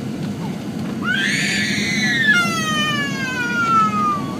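A small child's long, high-pitched wail that rises sharply about a second in, then slides steadily down in pitch for a few seconds, over the steady drone of an airliner cabin on descent.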